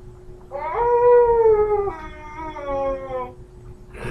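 A person's voice giving a long, drawn-out howl, high at first and dropping to a lower pitch about halfway through. A faint steady hum runs underneath.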